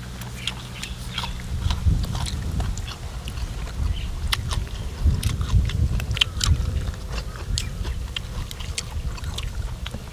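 People chewing food with their mouths, with many short wet clicks and smacks over a low rumble of chewing.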